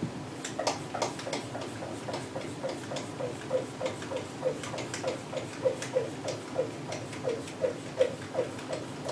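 One-gallon hand pump sprayer being worked by hand in a steady rhythm, about three strokes a second, each stroke giving a short squeak that falls in pitch, with light clicks.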